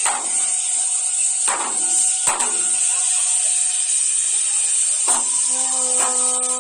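Fireworks going off: four sharp bangs with echoing tails, a second or more apart. Background music comes in near the end as held notes.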